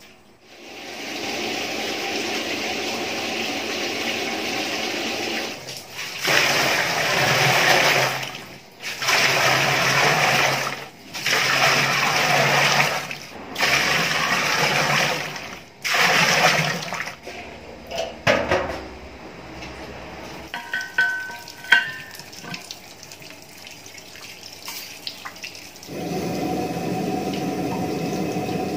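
Water poured from a plastic container into a large aluminium pot in about five long pours with short breaks between them, filling it. Then come a few clicks and handling knocks, and near the end a steady rushing noise starts.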